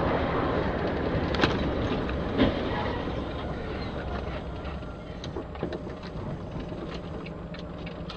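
Steady road and tyre noise of a vehicle driving on a wet highway, picked up by a dashcam, easing slowly. Two sharp knocks come about one and a half and two and a half seconds in, followed by a few fainter clicks.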